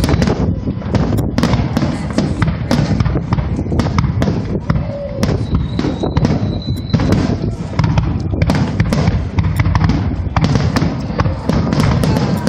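Aerial fireworks shells bursting in a dense, loud barrage: rapid overlapping bangs and crackling with a deep rolling rumble underneath.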